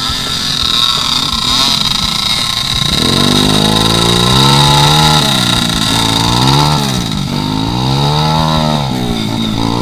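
Dirt bike engine revved hard and let back again and again in uneven surges, starting about three seconds in, as the bike churns through a muddy rut.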